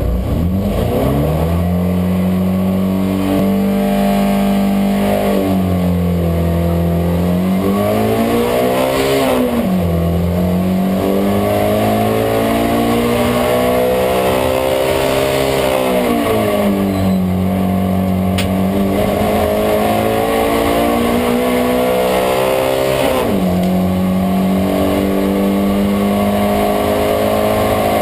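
Race car engine heard from inside the cabin, launching from the start of a hill climb and accelerating hard through the gears. Its pitch climbs and drops back at each of about four gear changes.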